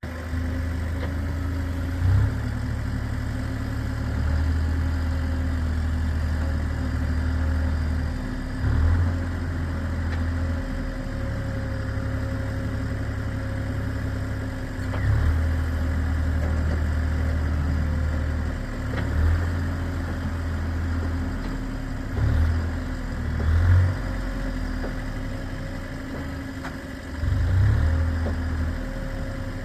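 JCB backhoe loader's diesel engine running at work, with a steady hum and a rumble that swells briefly several times.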